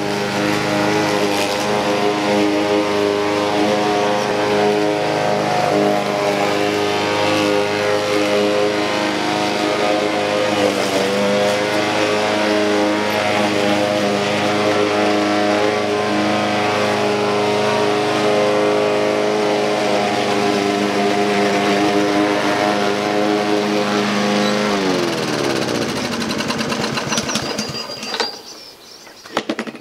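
Petrol push lawn mower engine running steadily, dipping briefly in pitch about a third of the way in. Near the end the engine is cut and winds down, falling in pitch.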